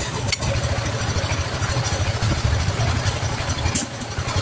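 An engine idling steadily, a fast even low pulsing, with a single sharp click shortly after it starts.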